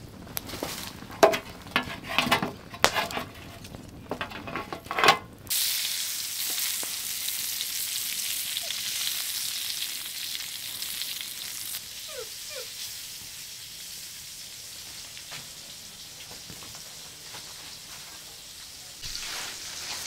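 Meat frying in a black metal tray over a campfire: a steady sizzle starts about five seconds in and thins out after about twelve seconds. Before it comes a run of sharp snaps and knocks.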